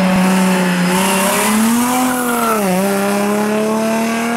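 Rally car engine running at high revs through a tight bend. Its note climbs a little, dips sharply about two and a half seconds in, then holds steady as the car pulls away, with a hiss of tyre noise near the start.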